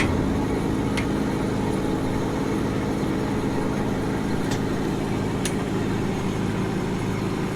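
An engine idling steadily, with a few faint sharp clicks spread through.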